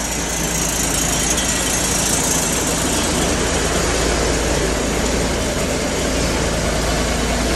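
Ward LaFrance fire engine's turbocharged Detroit Diesel 8V92, a two-stroke V8, idling steadily just after a cold start.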